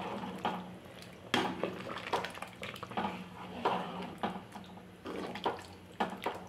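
A ladle stirring thick vegetable sambar in an aluminium pot: wet sloshing and squelching with irregular scrapes and knocks of the ladle against the pot's side, several a second, over a faint steady low hum.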